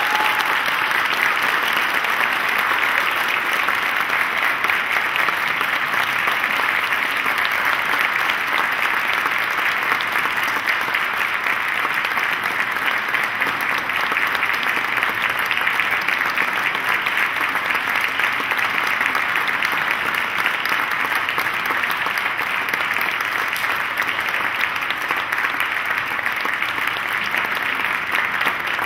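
Audience applauding: steady, sustained clapping from a large crowd.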